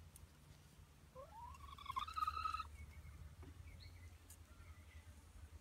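A single drawn-out animal call about a second in, rising in pitch and then held, lasting about a second and a half.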